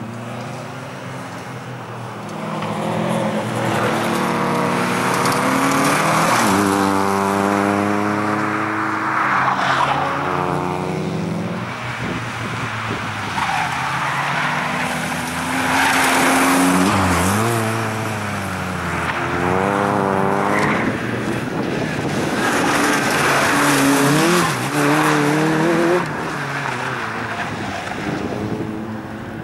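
Nissan Sunny hatchback driven hard: its engine revs up and drops back again and again through gear changes, with tyres skidding as the car slides through the turns.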